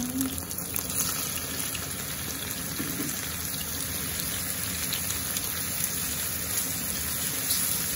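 Sliced bolete mushrooms frying in hot oil in a pan, stirred with a wooden spatula: a steady sizzle, with a few light clicks as they are tipped in at the start.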